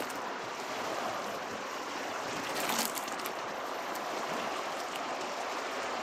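Hot soapy water sloshing in a plastic bucket as knitted wool is worked with a plunger and squeezed by hand to felt it, a little louder with a few splashes about three seconds in.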